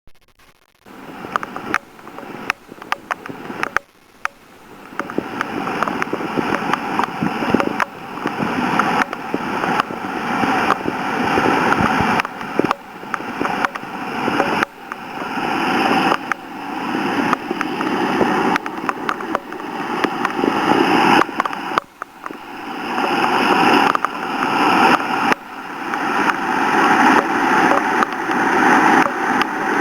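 Floodwater pouring over a stone walking bridge like a waterfall: a steady rushing roar that swells and falls back every few seconds. Sharp clicks sound in the first few seconds.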